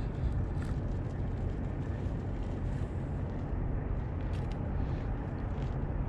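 Steady low rumble of wind buffeting the microphone, with a few faint small clicks.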